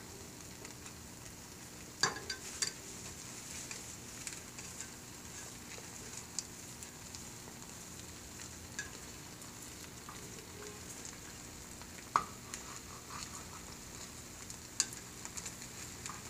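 Egg mixture sizzling quietly in a frying pan as the omelette sets, with a spatula scraping and tapping against the pan a few times.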